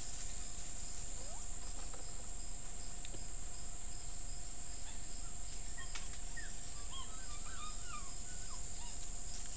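Forest ambience through a trail camera's microphone: a steady hiss under a constant high tone, with a few faint, short bird chirps from about six to nine seconds in.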